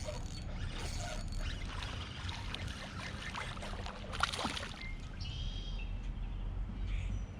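Water splashing and trickling beside a kayak as a small hooked bass is brought in, with one sharper splash about four seconds in.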